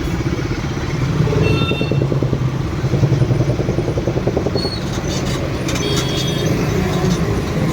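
Motorcycle engine running steadily while riding in traffic, with wind noise rushing over the phone microphone. A few brief high tones sound about halfway through.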